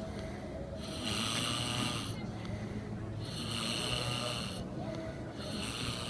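A person snoring in deep sleep, a long rasping snore about every two and a half seconds, three in all.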